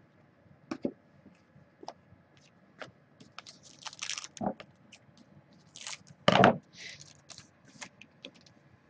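Trading cards being handled at a table: scattered light clicks and rustles of cards sliding and tapping, with a louder, fuller knock or rustle about six seconds in.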